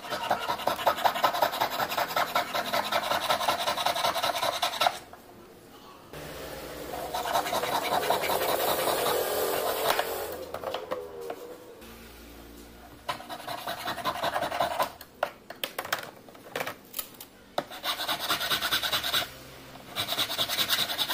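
Silver ring being cut and shaped by hand. A jeweller's piercing saw goes back and forth fast in the metal for about five seconds. After a short lull comes a stretch of rubbing, then rasping strokes of a metal file on the silver, some separate and some quick runs.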